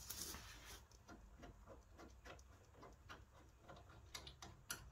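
Faint metallic clicks, about three or four a second, as a ball joint splitter is worked onto a seized track rod end.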